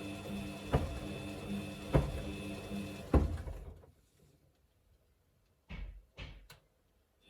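Samsung washing machine drum turning with a steady motor hum and a thump about every second and a quarter as the wet load tumbles. About three and a half seconds in, the motor winds down and the drum pauses in near silence, with three short knocks near the end, the usual stop between turns of a washer's wash action.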